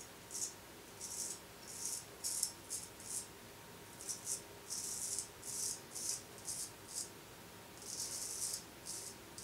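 Dovo 5/8 straight razor scraping through lathered stubble on the cheek in a run of short strokes, each a brief crisp rasp, a few of them longer, about two a second with small pauses.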